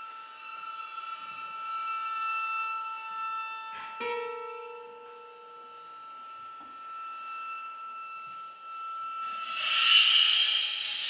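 Experimental improvised music: bowed metal percussion holds several long ringing tones together. About four seconds in there is a sharp tap and a short lower tone, and near the end the sound swells louder and turns noisier.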